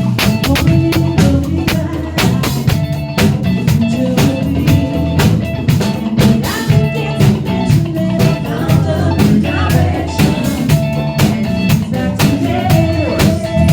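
A live band rehearsing an upbeat funk/disco cover: a drum kit plays a steady, busy beat under a moving bass line and other instruments.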